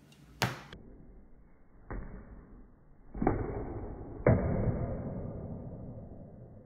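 A sharp knock, then three deep, drawn-out thuds a second or so apart, the last one loudest, each with a long smeared decay. It is a small toy basketball dropped from a high chair and bouncing on a tile floor, played back in slow motion so it sounds low and stretched.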